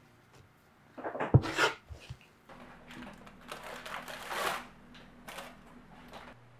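Parchment paper crinkling and rustling in several bursts as dough on it is lowered into a pot, over a low steady hum. Before that, about a second in, a short flurry of handling noise with one sharp knock, the loudest sound.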